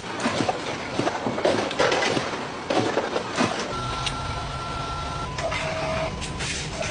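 A machine running, with irregular clicking and clattering for the first few seconds, then a steadier low hum with a thin high whine from about the middle on.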